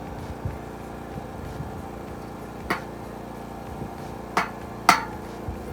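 Three sharp hammer blows, the second and third close together near the end and the last the loudest, over a steady low hum.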